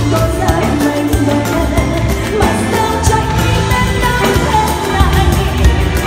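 A live band with drums and keyboards playing a slow Vietnamese song, with a male singer.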